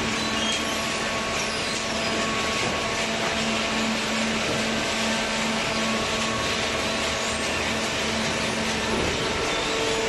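200-ton hydraulic waste-paper baler and its feed conveyor running, a steady mechanical hum and rushing noise. A low hum gives way to a higher one about nine seconds in.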